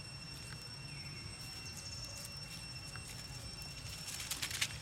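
Dry fallen leaves crackling and rustling under scampering macaques: a few scattered crackles, then a louder burst of crunching near the end as a monkey runs across them.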